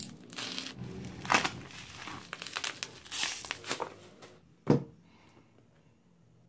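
Black plastic shipping wrap being slit and torn open, crinkling and crackling irregularly, then a cardboard box set down on a table with one sharp knock about three quarters of the way through.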